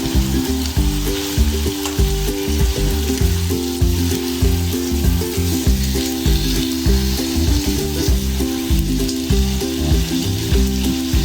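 Ribeye steak frying in butter in a frying pan, a steady sizzle, with background music with a moving bass line playing under it.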